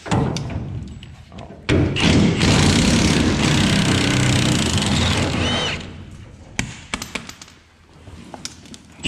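Cordless impact wrench hammering on a bolt of a grain-trailer hopper door: a brief burst, then a steady run of about four seconds that stops suddenly, followed by a few light metal clinks of hand tools.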